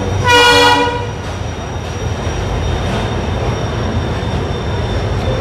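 An Indian Railways express coach running slowly through a station: a steady rumble of the running gear, with a short horn blast about half a second in that is the loudest sound. A thin high whine runs through the rest.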